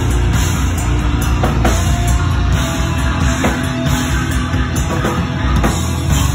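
Heavy metal band playing live and loud: distorted electric guitars over a drum kit.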